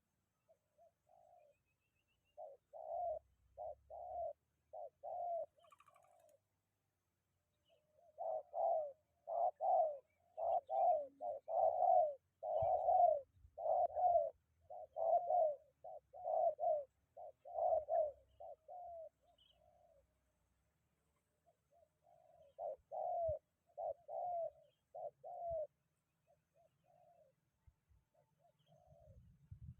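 Spotted dove cooing, a run of short low coos repeated in three bouts with pauses between, the longest and loudest bout in the middle.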